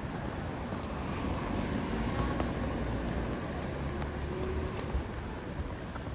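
Steady rain with fine drop ticks, and a motor vehicle passing on the wet street. Its low rumble builds about a second and a half in and eases off near the end.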